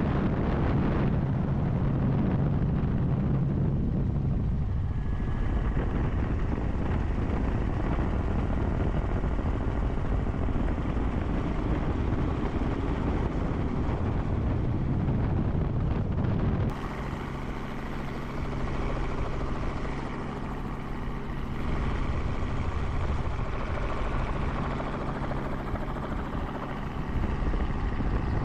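Steady helicopter rotor and engine noise. From about 17 seconds in it is a little quieter, with a changed tone.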